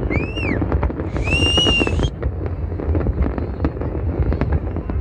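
A large fireworks display: dense, continuous popping and crackling bangs over a low rumble. Two shrill whistles cut through in the first two seconds, the first rising then falling, the second held for about a second.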